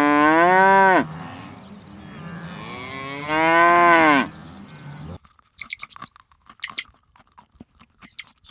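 Cow mooing: a call carried over from before ends about a second in, and a second long moo rises and falls in pitch. After an abrupt cut, crisp chewing crunches follow in quick irregular clusters.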